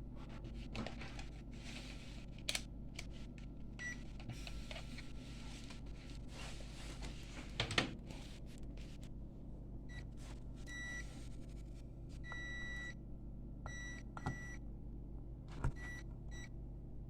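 Multimeter continuity beeper giving a string of short beeps of one pitch and varying length, mostly in the second half, as the pins are checked for a short; a few light clicks of the probe tips.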